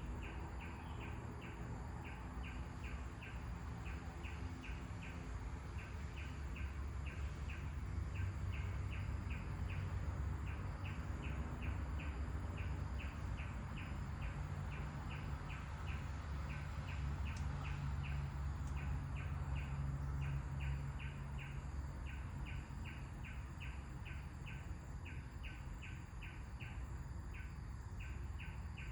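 A bird repeating a short high chirp steadily, about two to three times a second, over a low wind rumble that swells through the middle and eases off near the end.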